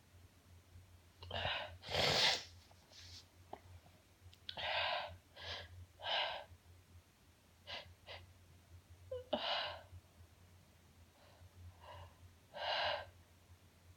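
A woman sneezing over and over, about ten short sneezes at irregular intervals, the loudest about two seconds in.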